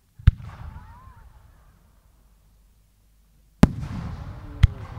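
Aerial firework shell: a sharp launch bang from the mortar, then about three seconds later the shell bursts with a louder bang and a long rolling echo, and a second sharp crack follows about a second after.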